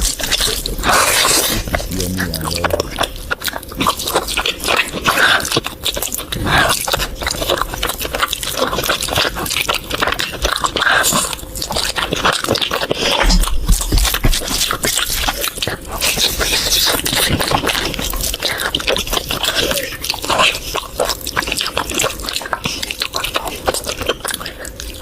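Close-up eating sounds from someone eating curry: wet chewing and lip-smacking, a dense run of sharp wet clicks.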